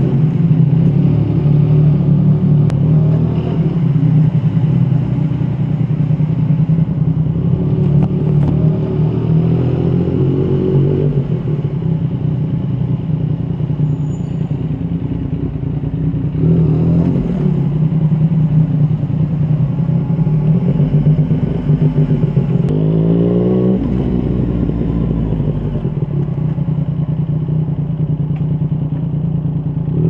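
Yamaha MT-09's three-cylinder engine through a Yoshimura R55 slip-on exhaust, running at low revs under a light throttle. Several short blips of throttle rise and fall in pitch, about a third of the way in, around halfway and again a few seconds later.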